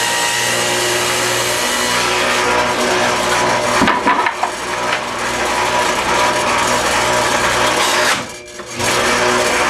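Table saw with a dado-type blade running steadily as boards are lowered onto it to cut finger-hold handle slots in bee-box sides, with a few sharp knocks about four seconds in as a cut board is lifted off and set down.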